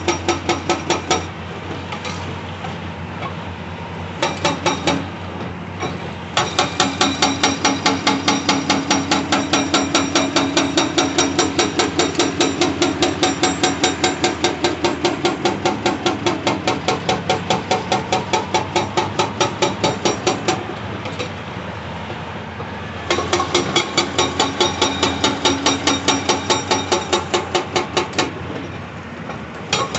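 Hydraulic breaker on a CAT 349E excavator hammering rock in fast runs of about six blows a second, stopping and restarting several times, with the excavator's diesel engine running steadily between runs. The longest run is in the middle, another comes near the end, and the hammering starts again at the very end.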